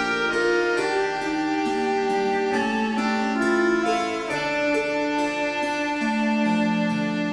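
Instrumental background music with many quick pitched notes at a steady level.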